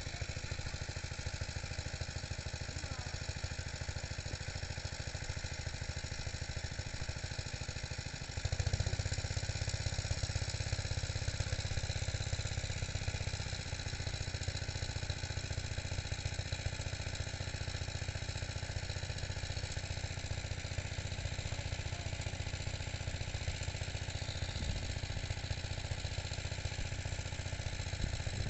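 A small engine running steadily at idle-like speed, with a fast even pulsing. It gets louder about eight and a half seconds in and holds there.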